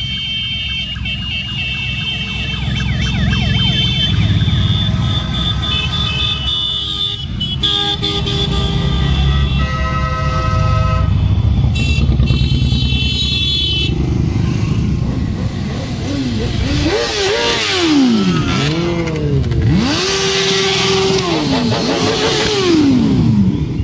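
A parade of motorcycles rumbling past in a steady stream, with many horns honking in long held blasts through the first half. Later a wailing tone rises and falls in pitch several times over the engines.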